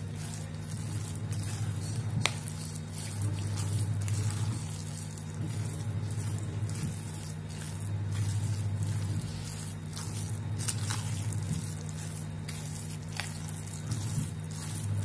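A spoon stirring and mashing a wet tofu, ground-chicken and egg mixture in a bowl: steady squelching, with a few sharp clicks of the spoon against the bowl.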